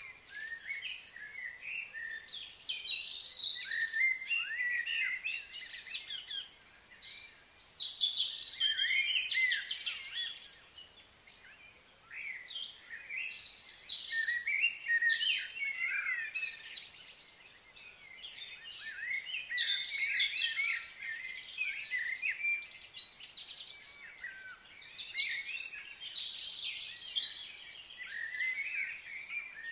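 Several songbirds chirping and singing in overlapping bouts of a few seconds, with brief lulls between them.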